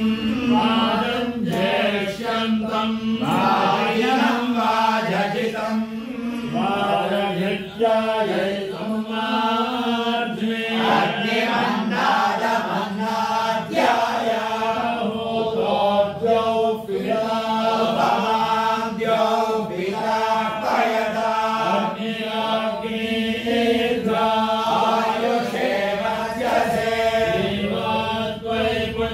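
A group of men chanting Vedic mantras in unison, a continuous recitation held close to one steady pitch.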